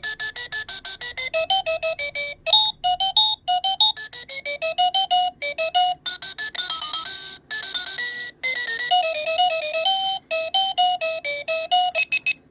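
Talking alarm clock's alarm playing an electronic beeping tune: quick high-pitched notes, about seven a second, with a few short pauses. It stops just before the end.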